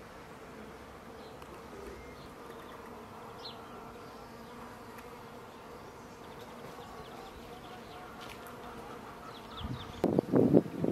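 Faint steady buzzing of a flying insect, with a few faint high bird chirps. Near the end a rooster starts crowing loudly.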